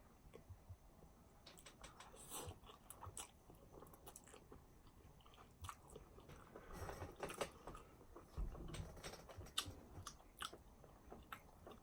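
Faint chewing and wet mouth clicks of a person eating, with slightly louder bouts about two seconds in and again around seven seconds.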